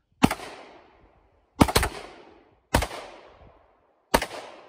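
Five gunshots fired at an irregular pace: a single shot, a quick double about a second and a half later, then two more single shots roughly a second and more apart, each followed by an echoing tail.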